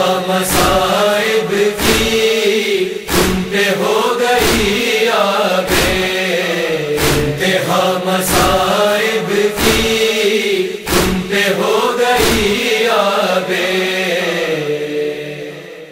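Noha chorus of voices in a wordless, drawn-out chant over regular chest-beating (matam) strokes, roughly one a second, fading out near the end.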